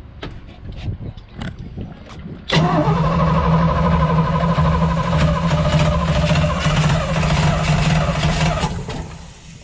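Starter cranking a 350 Chevy small-block V8 marine engine fitted with a new Edelbrock carburetor, beginning about two and a half seconds in with a short rising whine and turning over steadily for about six seconds before stopping. It sounds like it wants to start but does not catch. Light handling clicks come before it.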